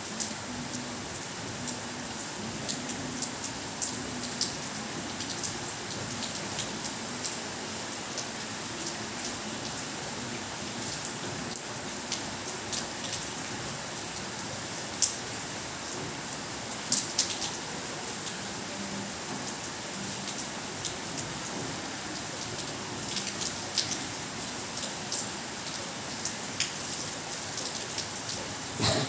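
Steady heavy rain pouring down, with many sharp drop strikes standing out from the even hiss.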